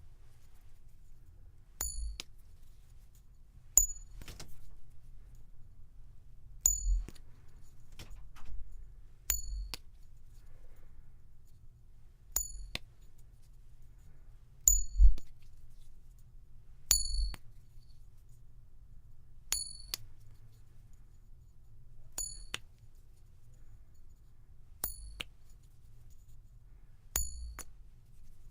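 A metal coin clinking about eleven times, every two to three seconds. Each clink is sharp, with a short, high, bell-like ring.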